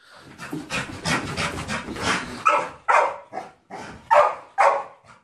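Excited dog: jumbled scuffling and movement noise, then sharp barks about twice a second through the second half.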